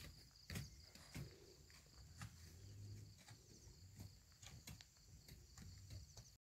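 Near silence: faint steady high insect chirring in the field, with a few soft rustles and ticks, cutting off near the end.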